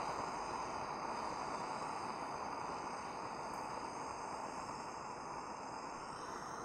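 Fire Maple X3 gas canister stove burner running steadily with water boiling hard in its pot: an even hiss that gets gradually a little quieter.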